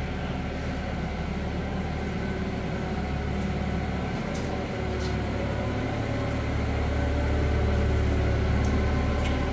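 Forklift engine running steadily under load while carrying a truck chassis, getting louder about six seconds in as it drives closer.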